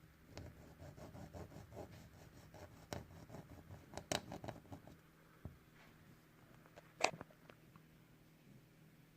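Faint small scratchy clicks in a quick run, about four or five a second, during the first half, then a single sharper click about seven seconds in.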